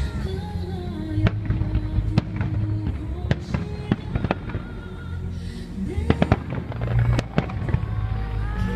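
Fireworks display: many sharp bangs and pops of shells bursting, scattered irregularly and overlapping, over music with a held melody.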